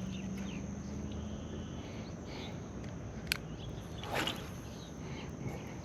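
Outdoor ambience with insects buzzing in one steady high tone, a sharp click a little over three seconds in, and a short whoosh about a second later.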